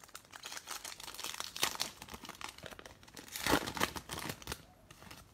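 Plastic wrapper of a 2020 Bowman Baseball card pack being torn open and crinkled in the hands, a dense crackling that peaks about three and a half seconds in and dies away near the end.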